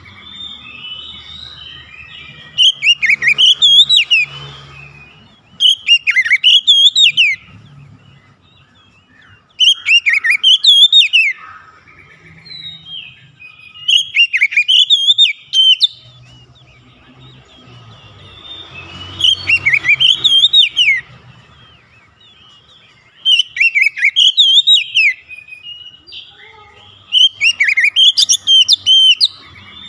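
Oriental magpie-robin singing: loud phrases of rapid rising and falling whistled notes, seven in all, each lasting a second or two with pauses of a few seconds between them.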